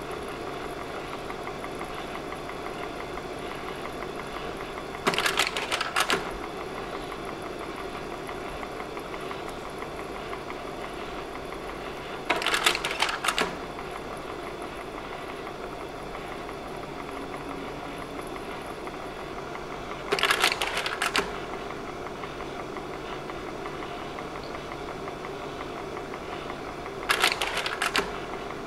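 Slide projector running with its fan humming steadily, and the slide-change mechanism clattering four times, about every seven and a half seconds, each change a double clack lasting about a second.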